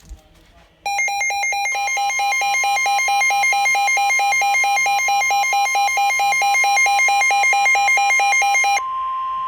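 Weather radio sounding a severe-weather alert: rapid, even pulsing beeps begin about a second in over the steady single-pitch warning alarm tone of NOAA Weather Radio. The beeping stops near the end, leaving the steady tone, which signals that a new warning, here a severe thunderstorm warning, is about to be read.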